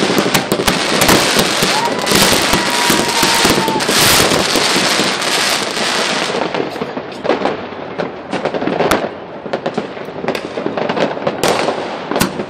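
New Year fireworks and firecrackers going off: many rapid, overlapping bangs and crackling for the first several seconds, thinning to scattered separate bangs. A steady whistle-like tone is held for about two seconds near the start.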